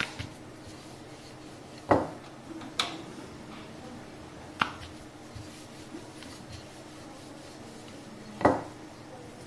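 Wooden rolling pin and board knocking now and then while puri dough is rolled out: a few sharp knocks, the loudest about two seconds in and near the end, over a faint steady hum.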